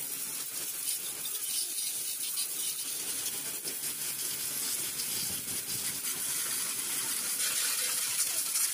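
Homemade high-pressure washer spraying, a steady hiss of the water jet.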